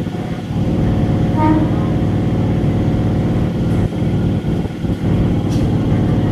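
Local electric train's motor coach running steadily, its traction motors and gearing making a dense, even hum. A brief short pitched note sounds about a second and a half in.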